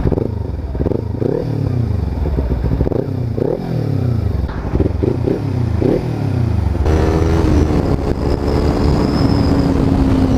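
Kawasaki Ninja 300 parallel-twin engine through an Akrapovic slip-on exhaust with its noise killer removed, revving up and dropping back several times, then running at steady higher revs from about seven seconds in.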